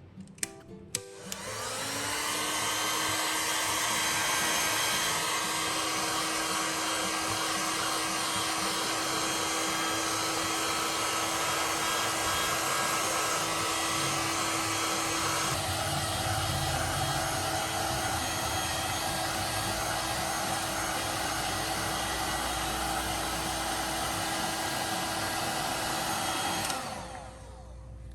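A small electric motor is switched on after a couple of clicks. It spins up about a second in and runs steadily with a constant hum and whir. Around the middle its sound changes and gets deeper, as if under load, and it spins down shortly before the end.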